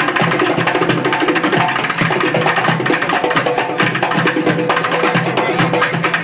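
Bucket drumming: drumsticks beating upturned plastic buckets in rapid, unbroken strokes, with a skin-headed hand drum played by hand alongside.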